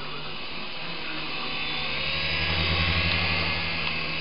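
Small electric motors and coaxial rotors of a Syma S107G-type toy remote-control helicopter running with a steady whirring hum and whine, growing louder about halfway through as the throttle comes up.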